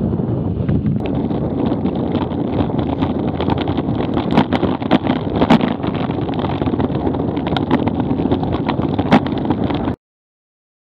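Wind buffeting the microphone of a bicycle-mounted camera while riding, with road rumble and scattered sharp clicks and knocks. The sound cuts off suddenly about ten seconds in.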